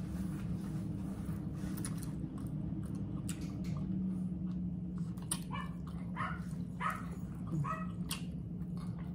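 An animal's short high whines, four of them, each well under half a second, in the second half, over a steady low hum and scattered light clicks.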